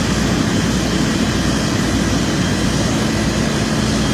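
Fire truck engine running steadily at the fire scene: a loud, continuous drone with a constant low hum under a wash of noise.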